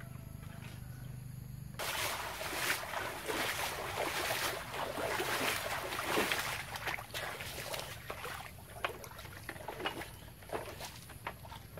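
Water splashed by hand onto a slatted bamboo raft deck, a loud, dense splashing that starts suddenly about two seconds in, after a low steady hum. In the last few seconds it gives way to separate knocks and creaks of bare feet walking on the bamboo slats.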